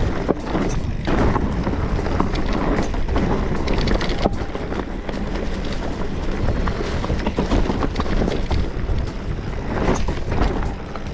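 Electric mountain bike rolling over a rough dirt trail: constant wind rumble on the camera microphone with frequent knocks and rattles from tyres and frame hitting rocks and roots.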